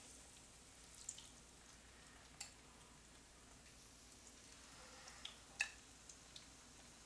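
Faint sizzle of crumbed chicken schnitzel frying in a pan. A few light clicks of metal tongs being handled come through, the sharpest about five and a half seconds in.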